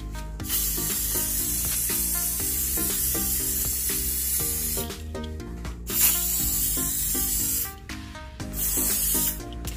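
Aerosol contact cleaner hissing as it is sprayed into a PC's memory slots and onto a RAM stick to clean the contacts: one long burst of about four seconds, then two shorter bursts, over background music.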